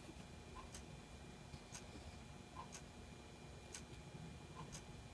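Faint clock ticking at an even rate of about once a second, against quiet room tone.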